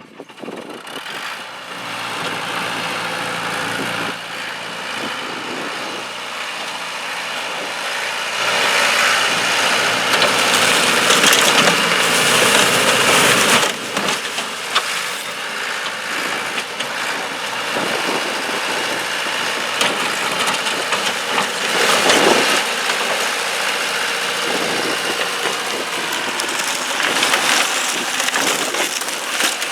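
Bobcat skid-steer loader running through the whole stretch, with louder, noisier passages about a third of the way in, briefly around two thirds, and near the end.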